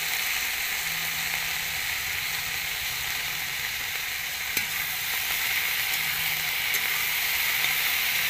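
Chopped vegetables frying in hot oil in an iron wok, a steady sizzle, with a metal spatula stirring them near the end.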